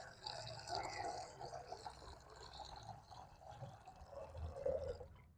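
Water being poured into a small cooking pot, a faint, uneven trickle that stops near the end.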